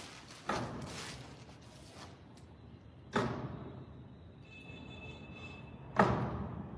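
Three heavy bangs, evenly spaced about two and a half seconds apart, each trailing off in an echo; the last is the loudest.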